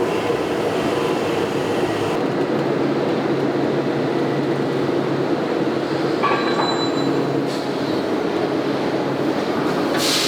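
Bearing-factory machinery running steadily: a dense mechanical din with a few brief high squealing tones around the middle. The noise changes abruptly about two seconds in and again near the end.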